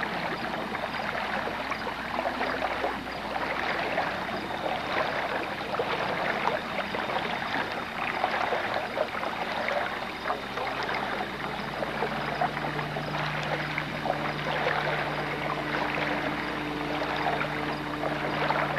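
Water lapping and trickling against a small fishing boat as it moves slowly. A steady low hum joins about ten seconds in.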